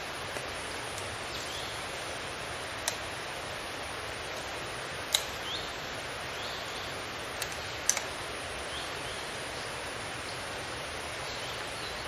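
Steady hiss of forest ambience with faint short bird chirps. It is broken by a few sharp clicks: a loud one about five seconds in and a close pair near eight seconds.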